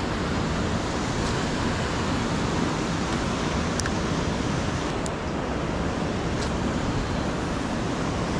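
Spillway outflow rushing and churning as whitewater, a steady, even noise of moving water.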